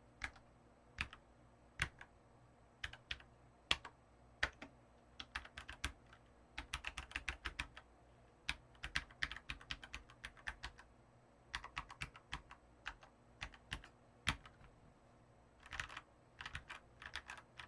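Typing on a stock Keychron K14 70% mechanical keyboard with tactile brown switches: irregular key clacks, single strokes at first, then quick runs of keystrokes. A slightly hollow sound, which the owner means to cure with foam.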